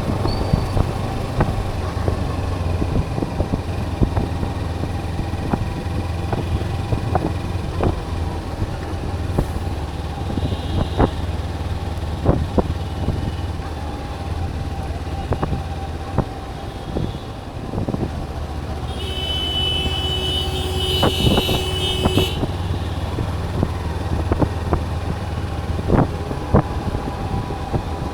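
Kawasaki Ninja 300's parallel-twin engine running steadily while riding in city traffic, with frequent short knocks. About two-thirds of the way through, a vehicle horn sounds for about three seconds.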